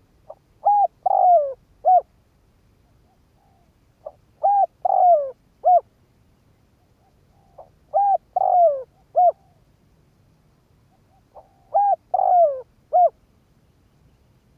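Spotted dove cooing: four repeated phrases about every three and a half seconds. Each is a short soft note followed by three or four coos, the middle one longer and falling in pitch.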